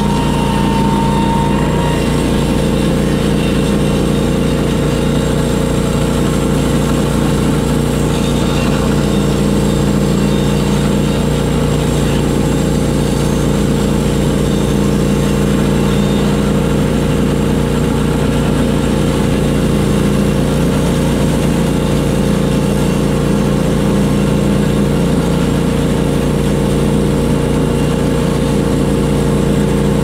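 Norwood LumberPro HD36 portable bandsaw mill running steadily under load as its blade saws through a large gum log.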